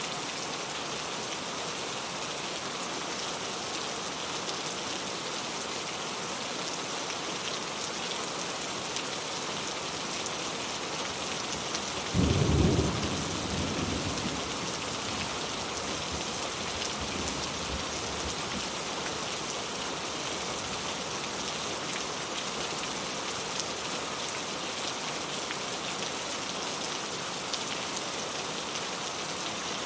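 Steady rain falling, an even hiss of many drops. About twelve seconds in, a single clap of thunder booms low and loud, then rumbles away over two or three seconds.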